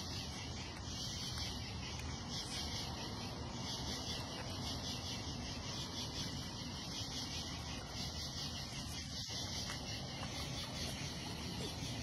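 Crickets chirping in a steady fast trill over a constant low hiss.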